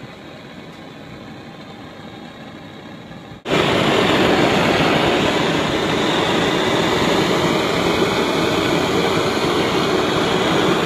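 Gas soldering torch burning with a steady rushing noise while a silver milk can is silver soldered. About three and a half seconds in it cuts suddenly to a much louder, closer torch flame.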